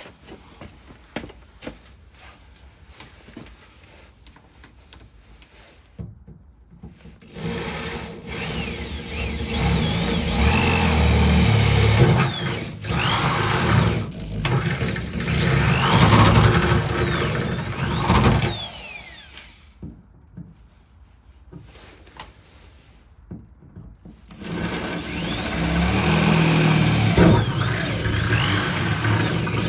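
Power drill running in two long bursts, its pitch rising and falling as it speeds up and slows, after several seconds of light clicks and handling.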